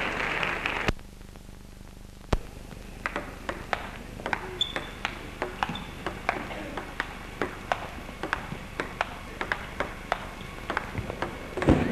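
Table tennis rally: the celluloid ball clicking in a steady back-and-forth rhythm against bats and table, about two to three hits a second, after crowd noise cuts off about a second in. Applause breaks out right at the end.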